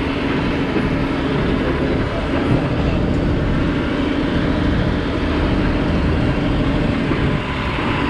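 A fire truck's engine running as the truck drives along a rough dirt track, with a steady noise haze and a constant hum.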